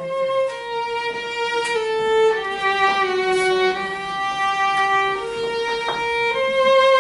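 Solo violin playing a slow melody of long held notes that sink in pitch and then climb again near the end.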